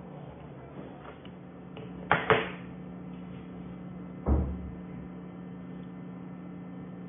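Small assembly parts handled on a tabletop: two sharp clicks about two seconds in, then a dull knock about four seconds in, over a steady low hum.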